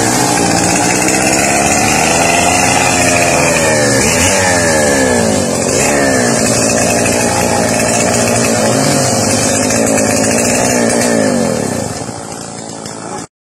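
Petrol chainsaw engine running at high revs, its pitch repeatedly rising and falling. It gets quieter near the end, then stops abruptly.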